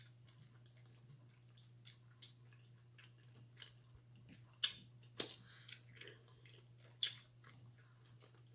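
Chewing and wet mouth smacks while eating boiled shrimp and mussels by hand, with several sharp clicks and smacks scattered through. A steady low hum runs underneath.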